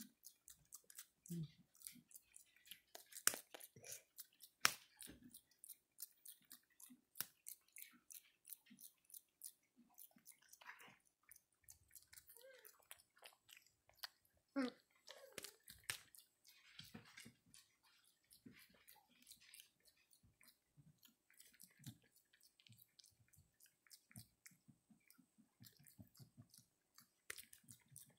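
Java macaque grooming a person's hair close to the microphone: a steady run of small clicks and crackles as its fingers pick through the hair, with a few louder pops.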